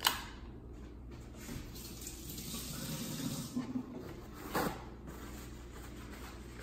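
Kitchen sink tap running for about three seconds as hands are rinsed after cracking an egg. A sharp knock comes at the very start, and a short click comes about four and a half seconds in.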